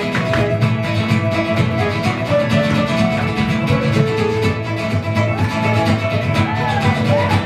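Live Irish traditional band music led by guitar, a lively steady tune, with the dancers' feet and brooms tapping on the stage in time.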